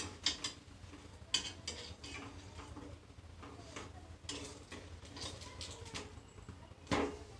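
Spatula clicking and scraping against a frying pan as a slice of egg-dipped bread is turned, a scatter of light irregular clicks, with one louder knock of the pan near the end.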